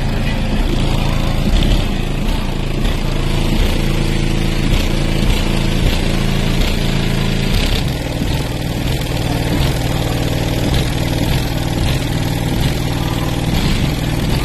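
Two 18-inch Resilient Sounds Team car subwoofers holding a steady, loud, low bass drone, with a slight shift in the tone about eight seconds in.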